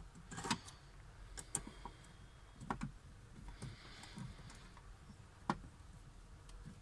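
Hand screwdriver working a screw in the sheet-metal case of a voltage stabilizer: scattered light clicks and scrapes of the tip in the screw head, with one sharper click about five and a half seconds in. The screw is spinning in place without backing out.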